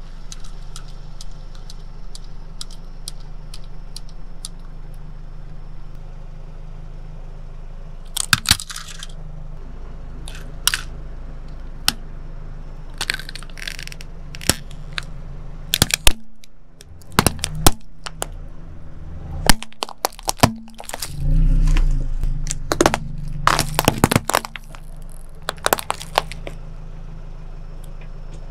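Hard plastic toy carriage and figures cracking and snapping under a slowly rolling car tyre, a series of sharp cracks that come in clusters, over the steady low hum of the car's engine.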